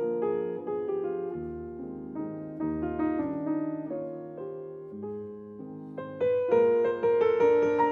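Background piano music: a melody of struck notes that ring and fade, growing louder and fuller about six seconds in.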